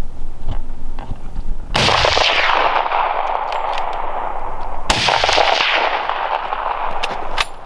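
Two rifle shots about three seconds apart, each followed by a long rolling echo that fades slowly.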